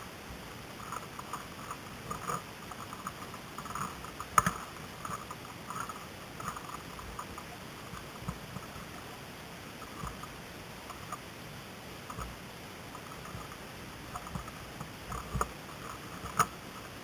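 Irregular light clicking and rustling, with two sharp cracks, one about four seconds in and one near the end.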